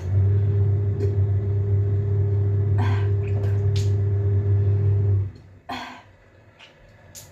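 A steady low motor hum switches on abruptly, runs evenly for about five seconds and cuts off suddenly. A few short breathy sounds come over and after it, with a couple of small clicks near the end.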